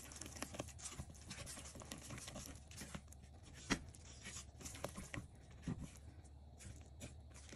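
Silicone spatula stirring dough in a stainless steel bowl: faint, irregular scrapes, with a sharper tap near the middle and another about three-quarters through.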